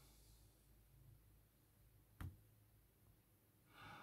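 Near silence, broken by one short sharp click a little past halfway through, with a faint soft noise near the end.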